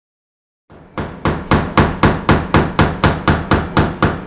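A hammer striking in a quick, even rhythm, about four blows a second, starting about a second in.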